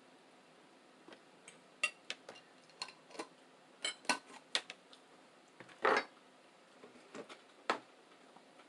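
Cutlery clicking and scraping against plates while eating: a dozen or so short, irregular clinks, the loudest about four seconds in, with a longer scrape near six seconds.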